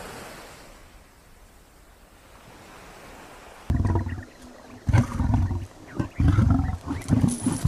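Leopard growling: a series of about four loud, low, rough growls that begin suddenly nearly four seconds in. Before them there is only a faint, steady hiss.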